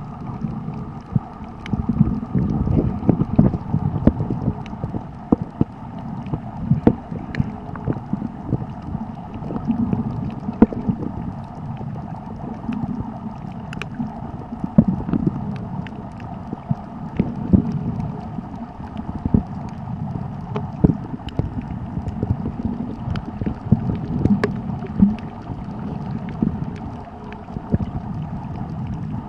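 Sound picked up by a camera held under water on a shallow coral reef: a low, muffled water noise with frequent sharp clicks and crackles scattered through it.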